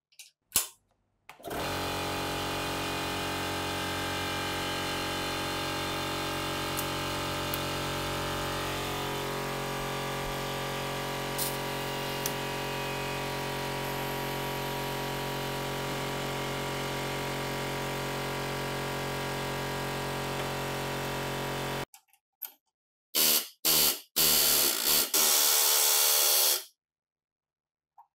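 Electric power tool motor running at a steady speed for about twenty seconds, then stopping. After a short pause it is run again, louder, in a few brief bursts and then one run of a couple of seconds.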